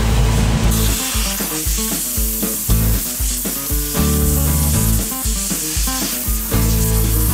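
Optima steam cleaner's lance blasting steam onto an oily electric motor casing: a steady hiss that comes up about a second in. Background music with a deep, pulsing bass line plays throughout.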